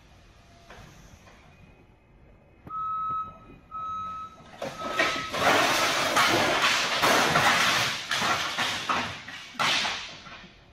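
A forklift's warning beeper sounds three short beeps, then a tall stack of empty wooden pallets topples off a high warehouse rack and crashes down, a long clatter of wood striking wood and floor that dies away near the end.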